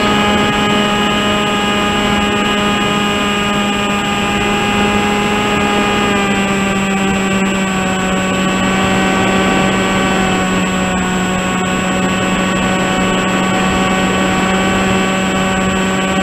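Electric motor and propeller of a Tek Sumo flying wing running steadily in flight, heard close up from the onboard camera as a loud whine over a rush of air; the pitch eases down slightly over the stretch.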